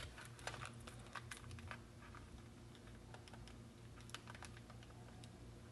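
Faint, irregular clicks of keys being pressed on a calculator as a sum is keyed in, a dozen or so spread over several seconds, over a low steady hum.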